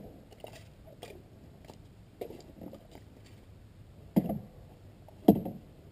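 Boots pulling out of thick tidal mud with small wet squelches and rustles, then two short, louder sucking squelches about a second apart near the end.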